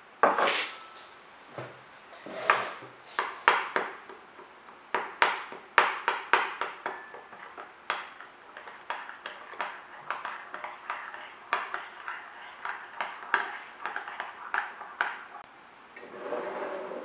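Kitchen utensils clinking and knocking against a bowl or dish in many irregular sharp taps, some with a short ring, with a brief stretch of steady scraping near the end.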